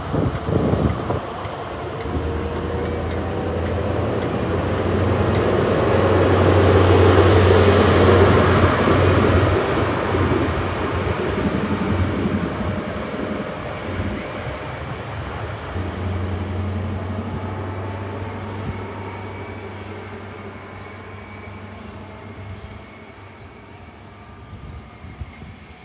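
High Speed Train (InterCity 125) drawing away: the rear Class 43 power car's diesel engine drones past with wheel-on-rail noise, loudest about eight seconds in, over a rising whine. After about 14 s the engine note dips, swells again, and then fades as the train recedes.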